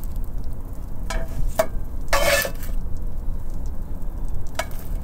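Eggs frying in a pan, with a few short scrapes of a utensil against the pan over a steady low rumble.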